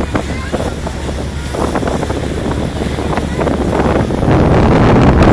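Wind buffeting a phone's microphone on the open deck of a moving ferry, with a steady low rumble underneath; it grows louder about four seconds in.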